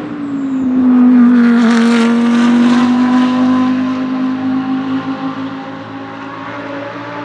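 Audi R8 LMS GT3 Evo II's 5.2-litre V10 racing engine passing close by. Its note drops in pitch as the car goes past about a second in, then holds a steady tone and fades as the car pulls away.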